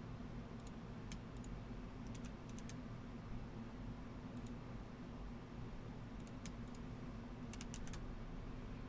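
Computer mouse clicking: scattered single clicks and quick runs of two or three, over a faint steady low hum.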